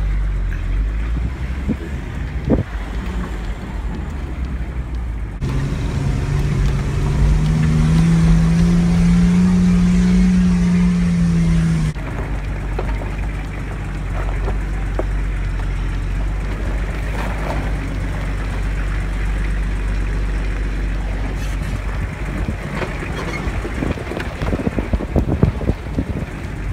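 Toyota 4x4's engine running as it drives over a rough dirt track, heard from inside the cab with a steady low rumble. About five seconds in the engine note rises and holds for several seconds, then drops back, and near the end there is a run of knocks and rattles.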